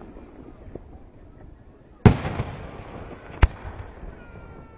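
Aerial fireworks display: a shell bursts with a loud boom about two seconds in that rumbles away, followed by a single sharp crack over a second later.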